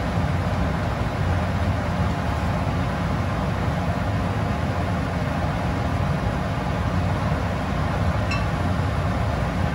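Kitchen range hood exhaust fan running steadily and fairly loud, a constant rushing drone. A light tick near the end.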